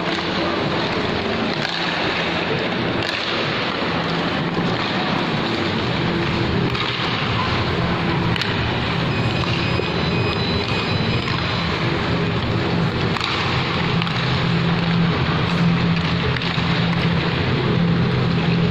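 Steady ambience of a large indoor ice rink during a hockey game: a constant wash of noise with a low hum that grows a little stronger near the end.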